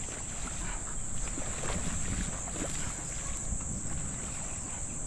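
Wind buffeting the microphone with a low, uneven rumble, over a steady high-pitched drone of insects.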